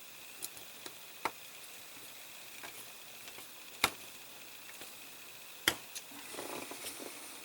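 Small model suspension parts being handled and pressed into place: a few sharp, separate clicks and taps, with light rustling of handling near the end.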